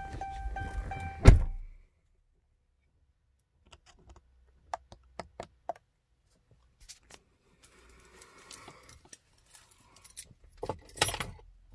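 Car's warning chime pinging in an even repeating rhythm, cut off by a loud thunk about a second in. After that it is mostly quiet, with scattered small clicks and a brief jingling rattle near the end.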